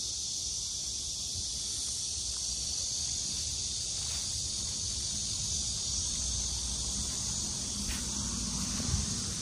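Steady high-pitched drone of insects in a field, unbroken throughout, over a low rumble, with a soft knock near the end.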